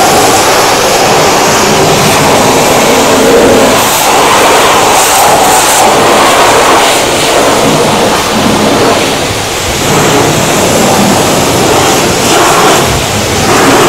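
Steam jenny wand spraying hot water at high pressure onto a bus's front axle and brake area: a loud, steady hiss of spray on metal, dipping briefly about ten seconds in and again near the end.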